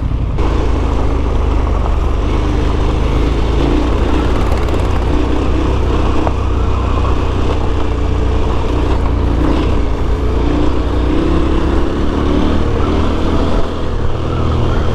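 KTM 1290 Super Adventure S's V-twin engine running steadily under way, its pitch wavering a little, over a steady rush of wind and tyre noise on a gravel track.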